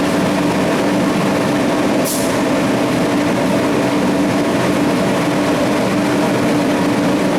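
A motor running with a steady, even hum and a brief hiss about two seconds in.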